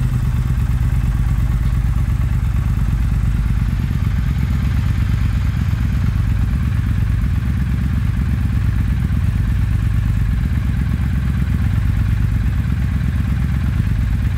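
Triumph Thruxton RS's 1200 cc parallel-twin idling steadily, running through a Scorpion full stainless header and an Arrow stainless slip-on silencer with a carbon end cap.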